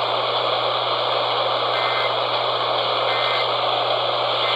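AM radio reception hiss and static, through which the Emergency Alert System end-of-message data bursts, three short warbling squawks about a second apart, are faintly heard, marking the close of a Required Monthly Test alert.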